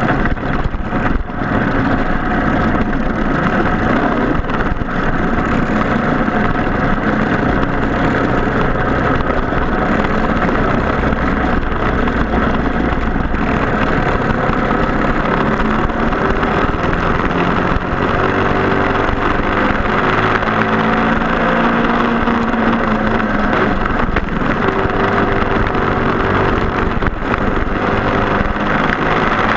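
Racing karts' Briggs & Stratton Animal four-stroke engines running hard on track. Several engine notes overlap and rise and fall in pitch as the karts speed up and slow down.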